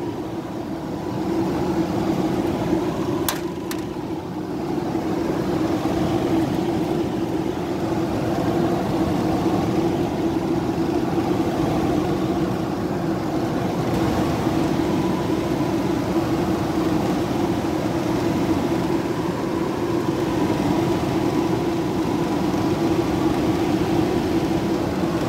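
Window air conditioner running steadily on medium cool just after being switched on, its fan and compressor giving a constant hum and rush of air. A single sharp click about three seconds in.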